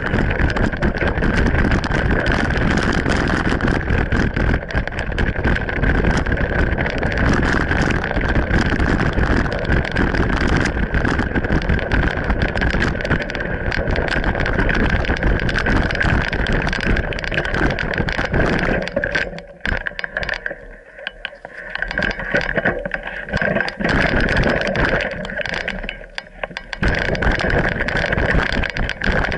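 Mountain bike riding fast down a rough, rocky forest trail: continuous wind on the microphone and the rattle of the bike over stones and roots, with a steady high hum underneath. The noise drops away twice, for a couple of seconds about two-thirds of the way through and again briefly near the end.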